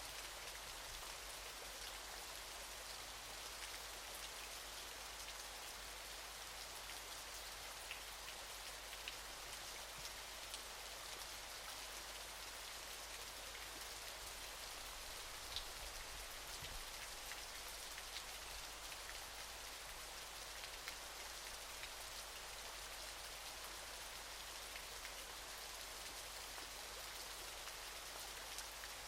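Falling water: a steady, even hiss with a few scattered drip-like ticks.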